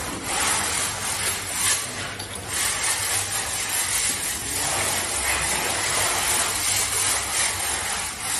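Metal lock parts clicking and clinking as a door lock and handle are handled and fitted into a steel security door, a run of small irregular ticks over steady background noise.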